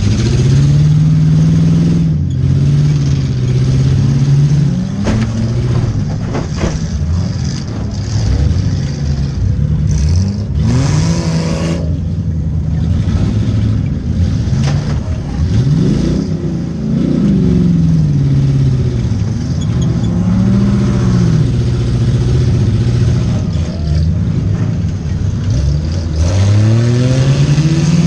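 Demolition derby car's engine revving up and down over and over as the car accelerates, backs up and turns in a dirt arena. It is broken by a few sharp bangs, typical of collisions, and a brief loud rush of noise about ten seconds in.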